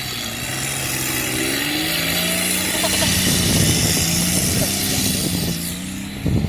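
Jeep Wrangler TJ engine pulling hard in soft sand: the revs climb about a second and a half in and hold steady, then drop off near the end. A steady hiss runs under it, and a sudden thump comes just before the end.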